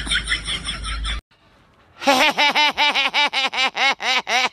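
A man laughing in a rapid run of high-pitched 'ha' syllables, about five a second, each rising and falling in pitch. It starts about two seconds in, after a short break of near silence.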